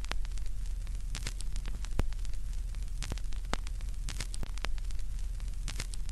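Radio static: a steady hiss over a low hum, broken by sharp crackles every second or so.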